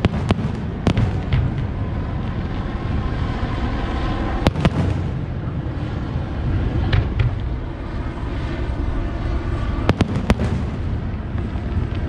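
Fireworks shells bursting: scattered sharp bangs, several in the first second and a half, a pair about four and a half seconds in, one near seven seconds and another pair near ten seconds, over a steady low rumble.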